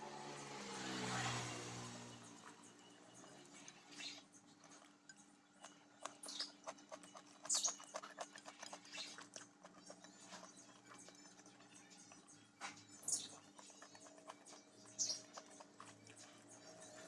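Close-miked eating sounds: irregular wet chewing and lip smacking, with a few sharper, louder smacks scattered through. The food is rice with sambal and cassava leaves.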